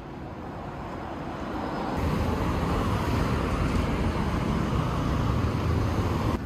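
City road traffic noise: cars passing on a multi-lane street, a steady rush that grows louder about two seconds in.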